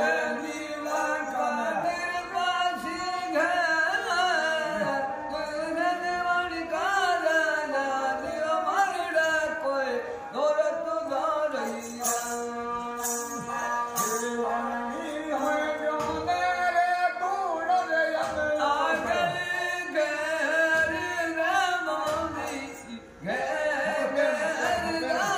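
A man singing a Rajasthani folk bhajan to a ravanhatta, the bowed folk fiddle of Rajasthan, over a steady drone, with small jingling bells.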